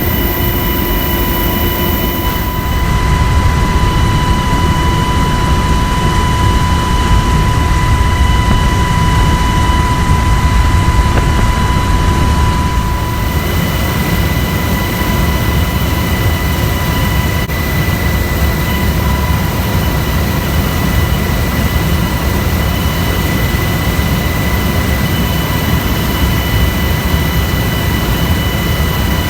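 Helicopter in flight heard on board: a loud, steady low rumble from the rotor and engine, with several steady high-pitched whines over it.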